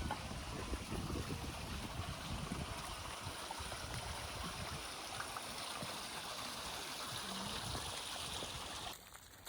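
Water running in a stream, a steady rushing that cuts off about nine seconds in.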